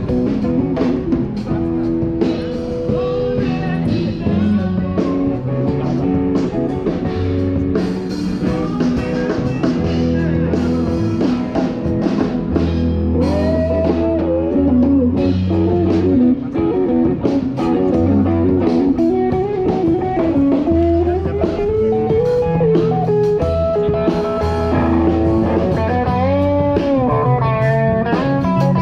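A live street band playing, with amplified guitar leading over a steady bass line and a drum kit.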